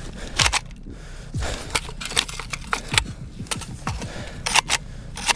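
An AKM's action being worked by hand: a series of irregular sharp metallic clacks and rattles from the bolt carrier and charging handle as the shooter tries to clear a stuck case.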